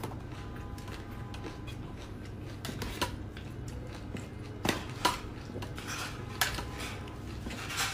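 A metal spoon and chopsticks scrape and clink against a metal plate as rice and toppings are mixed, with about five sharp clinks in the second half.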